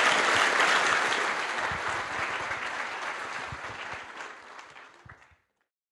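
Audience applauding at the end of a talk, dying away over several seconds and then cutting off sharply about five seconds in.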